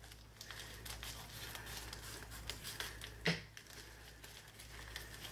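Scissors cutting through the thin plastic wrapping of a package, with the plastic crinkling as it is handled and pulled open. One sharp click a little past three seconds in.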